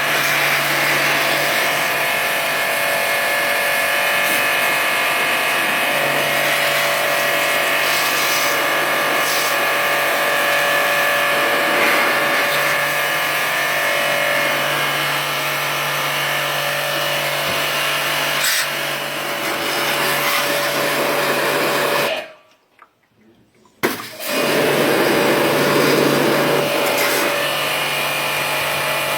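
A small electric motor whirring steadily with a hum, stopping for about a second and a half about 22 seconds in, then running again.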